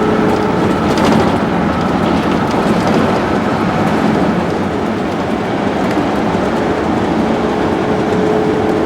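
Steady road and tyre noise heard inside a vehicle cabin at highway speed, with a faint steady whine under it and a few light rattles about a second in.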